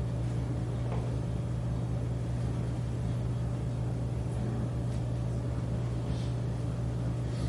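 Steady low mechanical hum of room equipment, with a few faint scratches of a pen writing on paper.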